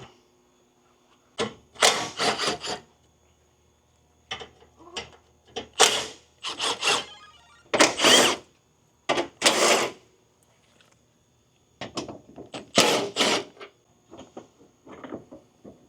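A car's plastic front bumper cover being worked loose and pulled off, its clips letting go: a string of about ten short plastic clicks, knocks and rattles with brief pauses between them.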